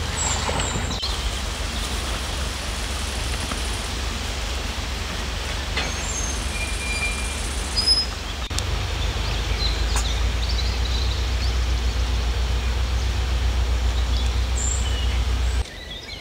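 Wind buffeting the microphone as a steady low rumble, with a few faint bird chirps. The rumble drops away near the end.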